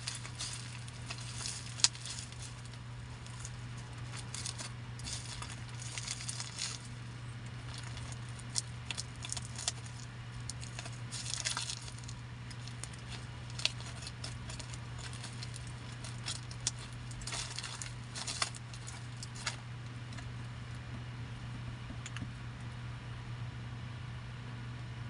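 A parcel and its small contents being handled: scattered rustles, clicks and light metallic clinks, over a steady low hum.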